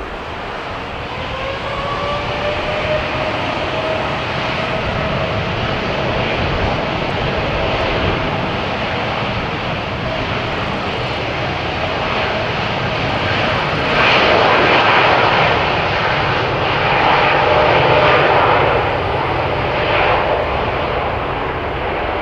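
Jet airliner's engines running loud, with a whine that rises in pitch over the first few seconds and then holds steady under a roar that grows louder and peaks about two-thirds of the way through.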